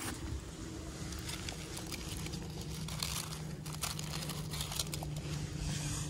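Dry fallen leaves and pebbles crunching and rustling in irregular crackles, with a low steady engine hum in the background.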